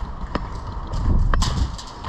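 Footsteps of a running airsoft player in gear, with rustling and rattling of kit close to the microphone and two sharp clicks about a second apart.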